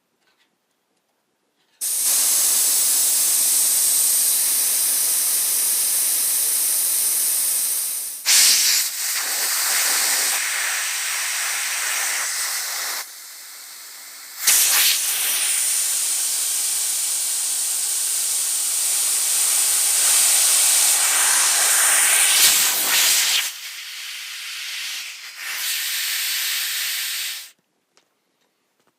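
Factory nitrogen holding charge hissing out of an air handler's evaporator coil through its charging valve. The loud, steady hiss starts about two seconds in, falters briefly a few times and drops lower for a moment midway, and stops shortly before the end.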